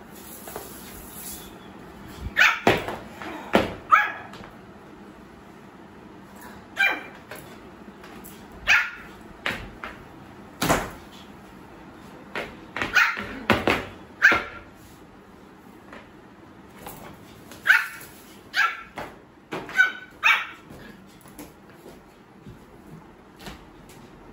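Pomeranian puppy giving little high barks, its first barks: short single yaps a second or more apart, with a few quick runs of two or three.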